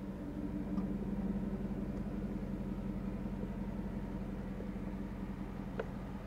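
Chevrolet Silverado's 6.2-litre V8 idling steadily with a low, even exhaust hum.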